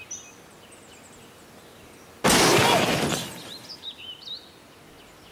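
Birds chirping, then about two seconds in a sudden loud crash that dies away over about a second.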